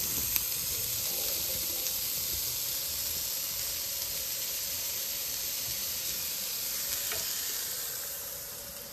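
Sliced sausage frying in its own fat in a frying pan on a portable gas stove: a steady sizzle that fades near the end.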